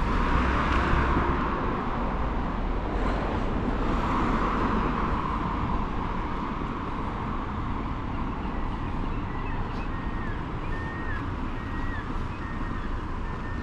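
Road traffic: cars passing on a nearby street, swelling about four seconds in. Faint short high-pitched chirps repeat in the last few seconds.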